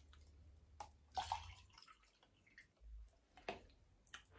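Faint sipping and swallowing of a drink from a cup, close to the microphone: a few short, soft liquid and mouth sounds, the loudest about a second in.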